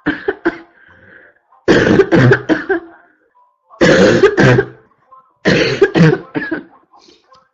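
A person's barking cough, coming in four fits of two to four harsh coughs each, with short quiet gaps between the fits.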